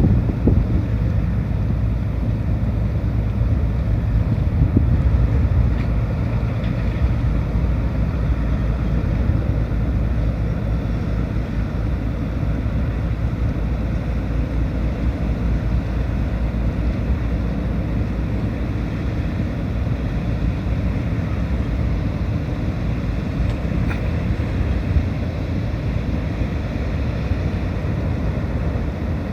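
Car ferry Akebono-Maru's engines running with a steady low rumble and hum while it manoeuvres in harbour, with wind buffeting the microphone.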